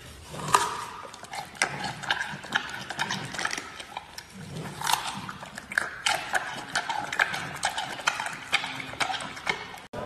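Giant panda chewing a bamboo shoot close to the microphone: irregular crisp crunching and cracking bites, a few a second.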